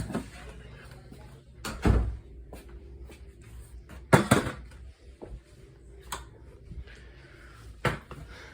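A few sharp knocks and bumps, about two seconds apart, over a steady low hum.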